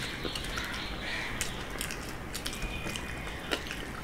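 Eating sounds: scattered small clicks and smacks of chewing, and fingers tearing rumali roti and working chicken curry on steel plates, over a steady low hum.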